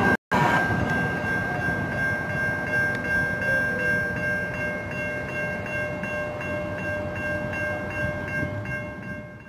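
San Diego Trolley SD100 light-rail train running at a station platform, a steady rumble with a steady high-pitched tone over it, fading toward the end.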